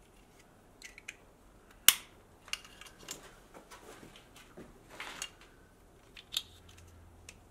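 Plastic wiring connectors and wires handled by hand: scattered light clicks and rustles, the sharpest click about two seconds in.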